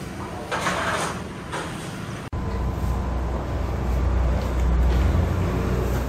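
Noodle-shop ambience, then, after a cut about two seconds in, a steady low rumble from the shop's kitchen around a large pot of noodle soup.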